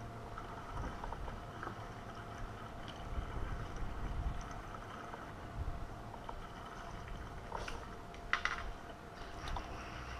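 Small waves lapping faintly against a fishing kayak's hull, with a few light clicks.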